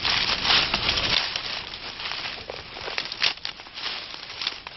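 Dry branches and twigs rustling and crackling as brush is handled and gathered for firewood, busiest in the first second, with a few sharp snaps around three seconds in.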